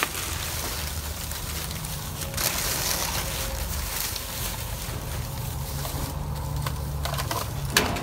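Plastic bags and bubble wrap rustling and crinkling as hands dig through a dumpster of trash, over a steady low rumble. The rustling is loudest in the middle.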